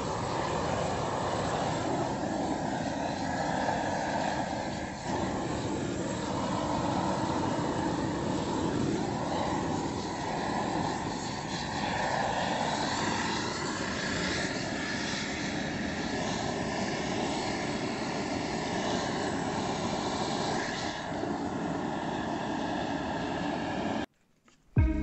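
LPG gas torch burning with a steady rushing roar as it singes the hair off a slaughtered pig's hide. The sound cuts off abruptly about a second before the end.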